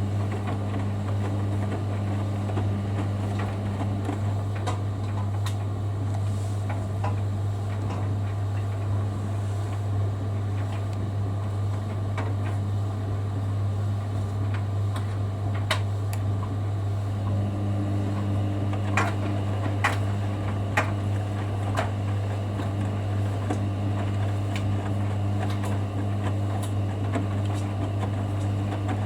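Hoover Dynamic Next DXOC58AC3/1-80 washing machine running a towel wash, with a steady low hum throughout. The drum motor's hum stops about 4 seconds in and starts again about 17 seconds in, as the drum pauses between tumbles. Small clicks and knocks come from the load in the drum.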